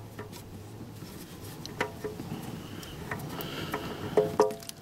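A few faint clicks and taps as an oil-soaked spin-on oil filter is turned off its mount by hand, with two short squeaky tones near the end.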